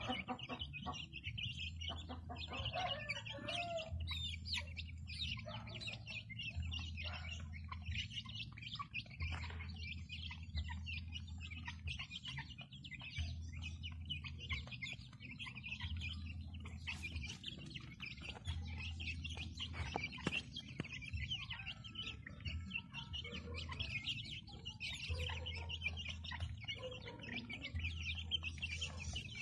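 A flock of young native chickens peeping, many short high chirps overlapping without a break.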